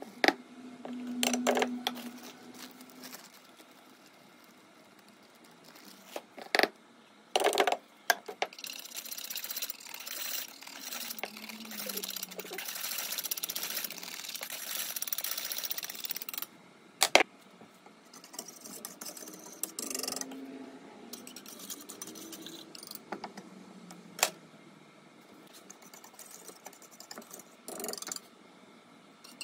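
Powder and liquid being stirred briskly with a utensil in a metal saucepan: a steady rasping, scraping sound for about eight seconds in the middle. Scattered knocks and clinks of pots and tools on the bench come before and after it.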